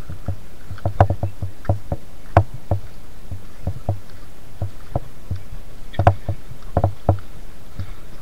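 Footsteps climbing stone steps, heard as irregular thumps of the jolting, body-carried camera about two to three times a second, over a steady low rumble.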